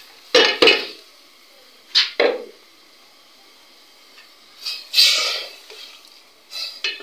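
A steel ladle clanking and scraping against an aluminium cooking pot as dal is stirred into fried masala: a few sharp knocks, in pairs near the start and about two seconds in, and a longer scrape about five seconds in.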